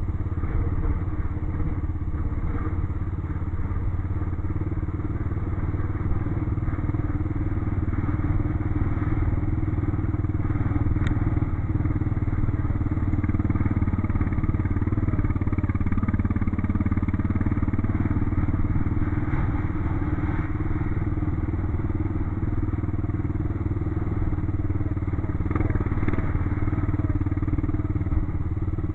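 ATV engine running steadily while riding off-road, its pitch dipping a little about midway before picking back up.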